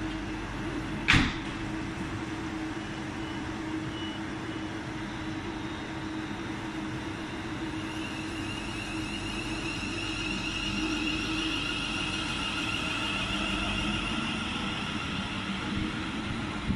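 London Northwestern Railway Class 350 Desiro electric multiple unit pulling out of the platform. It starts with a steady hum and a single sharp knock about a second in, then from about eight seconds in a high traction-motor whine grows as the train gathers speed.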